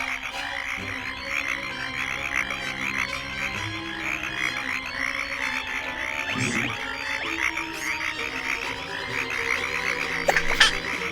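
A chorus of many frogs croaking in quick, overlapping chirps, as a cartoon sound effect, over background music with steady held notes. A short, sharp sound stands out near the end.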